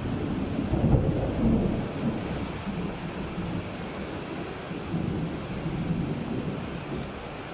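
A thunderclap rolls in suddenly, peaks about a second in, then rumbles on and slowly fades over a steady hiss of rain.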